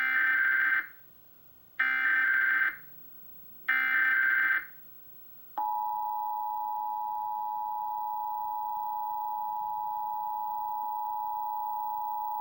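Emergency Alert System header: three raspy bursts of digital data tones, about a second each, that encode a Required Monthly Test. About five and a half seconds in, the steady two-tone EAS attention signal starts and holds.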